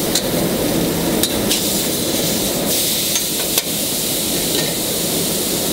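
Food sizzling steadily on a hot flat-top griddle, with a few sharp clicks of a metal spatula striking the griddle as a mound of tuna salad is spread out flat.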